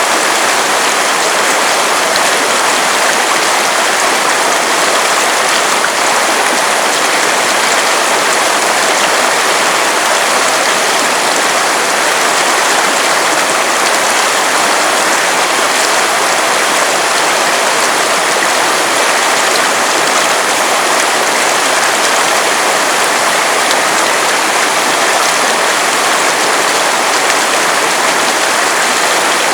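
River water running over rocks: a steady, loud rushing of flowing water with no change through the stretch.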